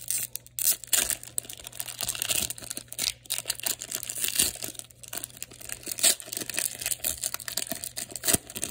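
Foil wrapper of a Topps Chrome trading-card pack crinkling as it is handled and torn open, a dense run of small irregular crackles.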